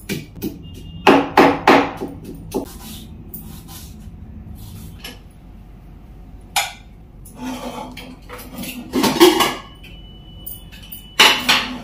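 A pestle knocking several times in a small mortar, crushing garlic, ginger and cumin. Then come metal clanks and scrapes as a pressure cooker lid is unlocked and lifted off, with a brief metallic ring, and a few sharp knocks near the end.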